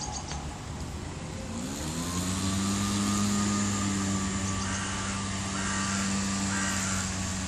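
A motor spins up about a second and a half in, its pitch rising and then holding as a steady hum with several overtones, over a constant background hiss.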